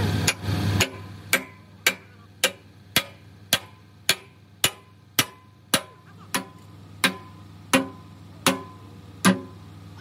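Regular hammer blows on metal, about two a second and slowing slightly toward the end, each with a short ring, over a steady low hum.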